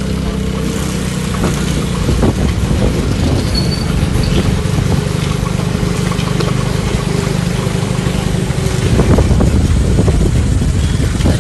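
Motorbike engine running steadily while riding, with wind and road noise.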